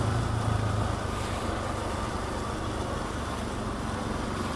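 Bajaj Pulsar NS200 motorcycle engine running steadily at low revs.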